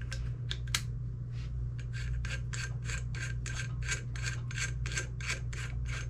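Threaded metal parts of an AR-15 buffer tube assembly being turned down on the receiver: a few light clicks and one sharp click about a second in, then a regular run of short rasping strokes, roughly three a second.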